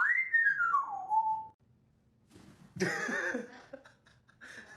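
A parrot whistles one long note that sweeps quickly up, then slides down with a wavering pitch. About three seconds in comes a shorter, harsher call.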